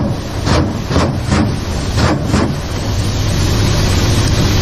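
Ka-52 helicopter cockpit noise: a steady drone from the turbines and coaxial rotors with rushing wind. In the first two and a half seconds it is broken by a quick series of about seven sharp bangs of weapons fire.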